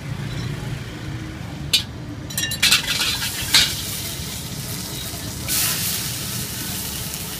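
Metal ladle clanking and scraping in a carbon-steel wok several times, then a sizzle that starts about five and a half seconds in as chopped garlic hits the hot oil and keeps hissing.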